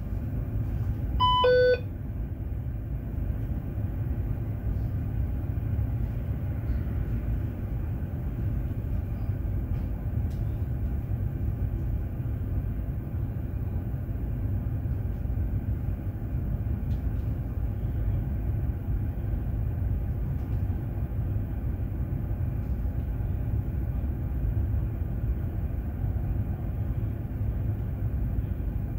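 Steady low rumble inside a city bus, with a short electronic beep about a second and a half in.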